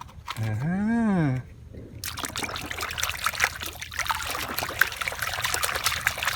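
Water trickling and splashing, with many small clicks and spatters, as toys are washed in it. The sound starts about two seconds in.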